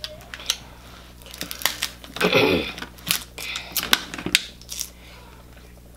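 Snow crab leg shells being cracked and snapped apart by hand, a scattered series of sharp clicks and crunches as the meat is pulled out.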